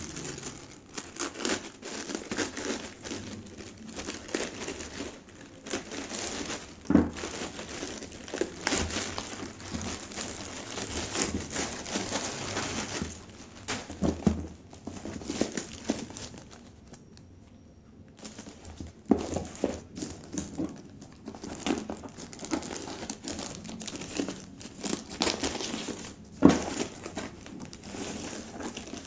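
Plastic parcel packaging crinkling and crumpling in the hands: a clear plastic mailer bag handled, then black plastic wrap peeled and pulled open, with a few sharper crackles and a brief quieter pause a little past halfway.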